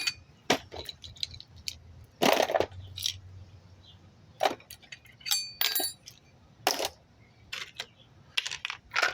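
Small hard parts and tools clinking and clattering as they are handled and set down, about a dozen separate knocks, a few with a short metallic ring near the middle.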